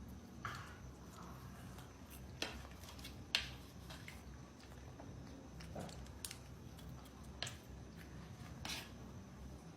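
Dog eating: faint scattered crunches and clicks, with a few sharper snaps spread through.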